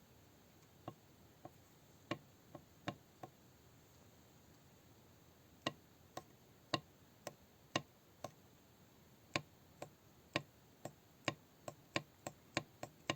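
Sharp metal clicks of a Lada Niva transfer case centre differential's drive-shaft (side) gear being pulled out and pushed back in by hand, knocking at each end of its axial play; the play is excessive, a very large gap that calls for a thinner shim. The clicks come a few at a time at first, then quicker toward the end.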